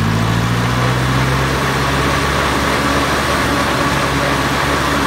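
Ford 601 Workmaster tractor's four-cylinder engine running as the tractor is driven. It speeds up right at the start and then holds at a steady pitch.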